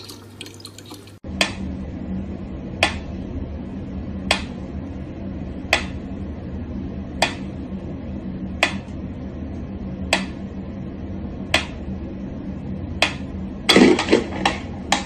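About a second of tap water running, then a mechanical pendulum metronome ticking slowly and evenly, one tick about every second and a half, over a low steady hum. Near the end a brief, louder noisy burst sounds among the ticks.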